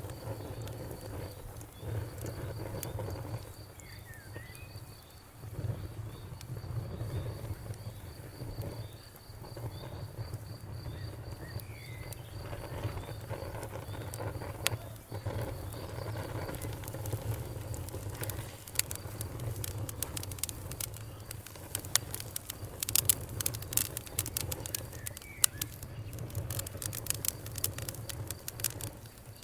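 Campfire burning with a low rumble and crackling, the sharp pops growing much more frequent in the second half. A cricket chirps in a fast, high-pitched pulse through the first half, and a few short chirps from other animals come now and then.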